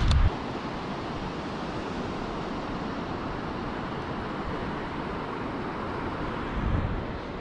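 Steady wash of surf and wind on an open beach, with wind buffeting the microphone briefly at the start and again near the end.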